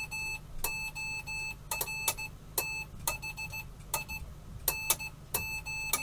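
Morse code sidetone from a homebrew iambic keyer's small speaker: a buzzy beep of about 900 Hz keyed in dots and dashes, with a click at the start of each element.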